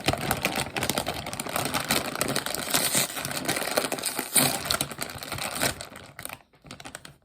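A bag of kettle-cooked potato chips being handled and opened: its crinkly packaging gives a dense run of crackles that dies down about six seconds in.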